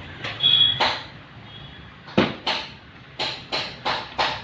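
A series of sharp knocks and clinks of metal parts being handled, about seven in all, with a brief high squeak about half a second in.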